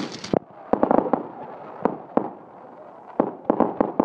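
Fireworks display: a string of sharp bangs and pops at irregular intervals, with a quick flurry of cracks about a second in and another run near the end.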